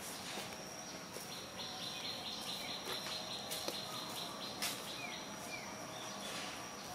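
Outdoor ambience of birds chirping over a steady high-pitched insect whine, with a fast trill from about a second and a half to three and a half seconds in and a few short falling chirps. A couple of sharp clicks stand out near the middle.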